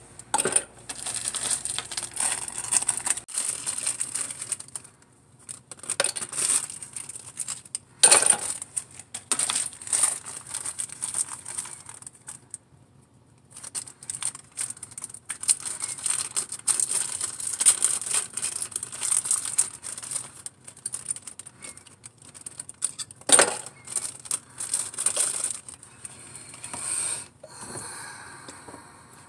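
Small plastic lip gloss tubes and wands handled and dropped into a clear plastic tub: a run of light clatters and sharp clicks, with a plastic bag crinkling.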